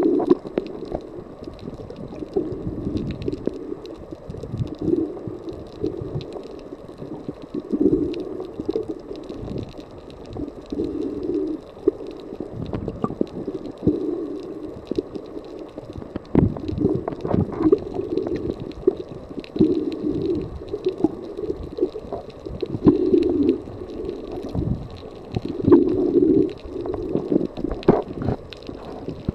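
Muffled underwater sound picked up by a submerged camera: low gurgling rumbles of moving water that swell every two to three seconds.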